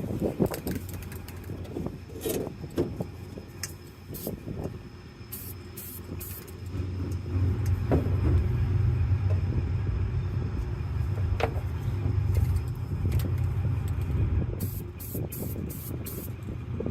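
Low, steady rumble of a heavy vehicle that swells about seven seconds in and carries on, with a few short high hisses of an aerosol spray can painting.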